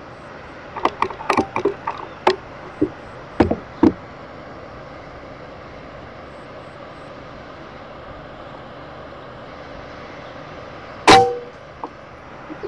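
A single sharp rifle shot about eleven seconds in, the loudest sound, with a brief ringing tone after it. Earlier, in the first four seconds, a scattered run of small clicks and knocks, all over a steady background hiss.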